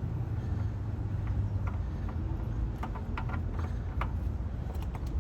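A steady low rumble of outdoor background, with a few faint clicks and knocks about three to four seconds in as the oil filter is worked loose by hand.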